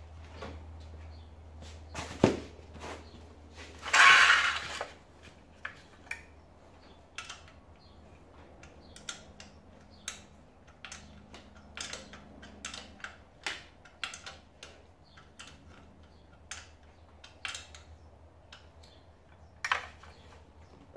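Hand tools and metal parts clinking and knocking at irregular intervals as the exhaust expansion chamber is unbolted from a 50cc two-stroke pit bike, with a thump about two seconds in and a louder scraping rattle around four seconds in.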